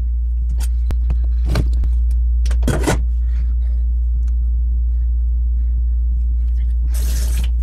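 A steady low rumble, with a few short knocks and rustles of fruit being handled and dropped into a glass blender jar, the longest of them near the end.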